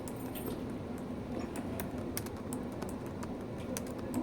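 Keys on a MacBook Pro laptop keyboard being typed with one hand: irregular light key clicks, several a second, over a steady low background hum.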